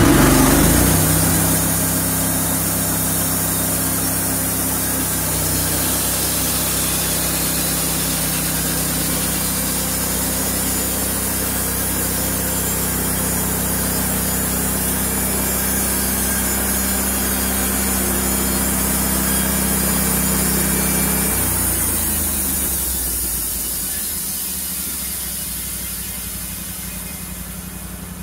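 Portable bandsaw sawmill cutting along a squared log: its engine runs steadily under load beneath the hiss of the band blade in the wood. A little over 20 seconds in, the engine note drops and the sound tapers off as the cut ends.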